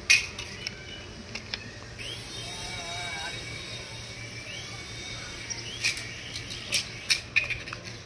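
HX708 toy RC helicopter in flight: its small electric motor and rotor whine steadily, twice gliding up in pitch and then holding. Sharp clicks are scattered through, the loudest right at the start and several near the end.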